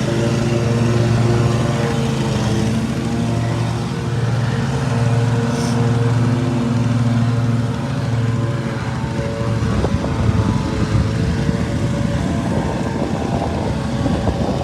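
Riding lawn tractor's engine running steadily with an even hum, with rougher rustling noise joining in over the second half.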